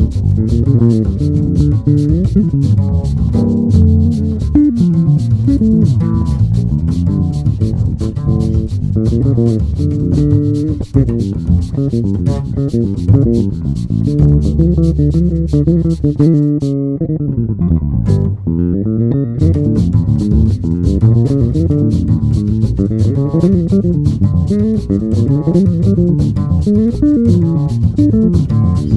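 Sadowsky four-string electric bass played fingerstyle: a quick, continuous run of plucked notes, with one long low note held about halfway through.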